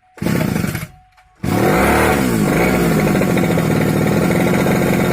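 Brush cutter engine, just refitted with a new piston and rings, being started: a short burst of firing, then about a second and a half in it catches, revs up and down, and settles into steady running.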